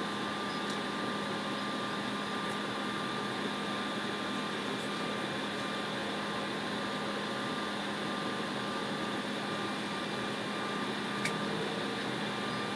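Steady cabin noise inside an Embraer E190 jet airliner taxiing on the ground, with engines at idle and air-conditioning hiss, a low hum and a thin steady whine. A faint click about eleven seconds in.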